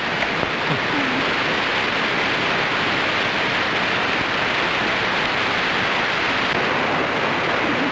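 A steady, even rushing hiss with no speech.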